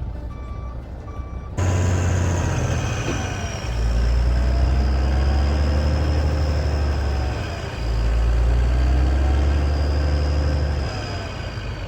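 Delivery truck's reversing alarm beeping about twice a second, then cut off by the truck's engine starting to run loud, with a high whine above it. The engine revs up in two long spells.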